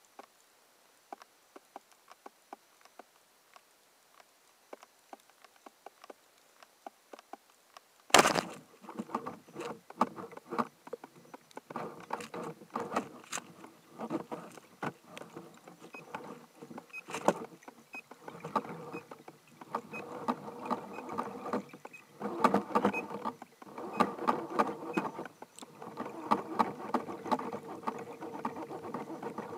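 Band-powered speargun fired underwater: a single sharp crack about eight seconds in, after a stretch of faint scattered clicks. Then rushing water noise in uneven surges as the diver kicks up toward the surface.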